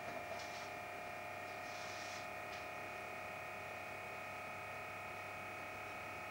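Faint, steady electrical hum and whine made of several steady tones, with a few soft faint rustles in the first couple of seconds.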